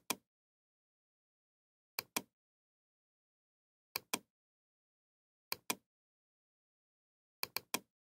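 Computer mouse button clicking in quick pairs, five times about two seconds apart, the last a quick run of three.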